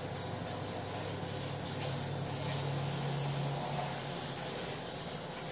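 Kitchen tap running into a steel sink while dishes are washed by hand, a steady hiss of water. A low steady hum sits underneath.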